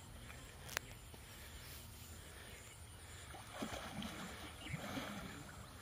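Wild Asian elephant wading in a muddy pond: faint sloshing and splashing of water around its legs and trunk, strongest between about three and a half and five seconds in. A single sharp click about a second in is the loudest sound.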